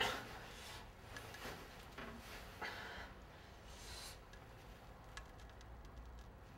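Faint rustling and rubbing of a person's clothing as they shift about: a louder rustle at the start, then a few short soft scrapes over the next few seconds.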